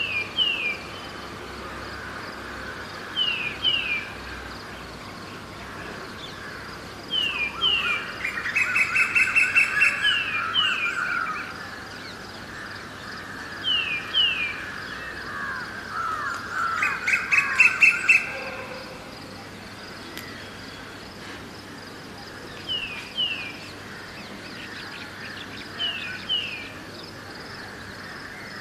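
Birds calling in an early-morning chorus: one bird repeats a quick pair of falling notes every few seconds over a steady wash of distant birdsong. Two louder bursts of rapid chattering calls come about eight seconds in and again about sixteen seconds in.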